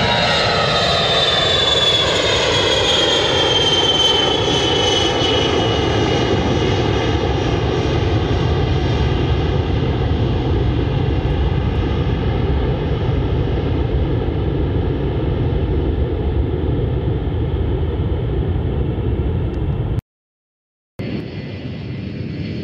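E-8C JSTARS, a four-engine Boeing 707-based jet, climbing out after takeoff: a loud, steady jet roar with whining tones that fall in pitch over the first several seconds as it passes and draws away, the high end slowly fading. Near the end the sound cuts out for about a second, and a fainter jet roar follows.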